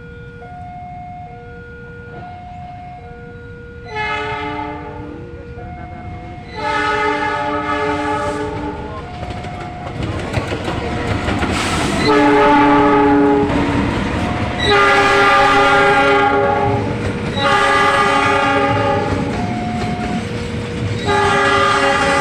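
A railway warning alarm alternates between two tones. From about four seconds in, a locomotive horn sounds a series of about six long blasts, the driver's greeting by horn. From about ten seconds in, the rumble and wheel clatter of the passing train run under the blasts.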